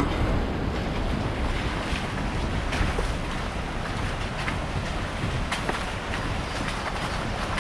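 Wind rushing over a roof-mounted camera's microphone, over the low rumble of a truck driving on a rough, muddy dirt trail, with scattered small clicks and knocks.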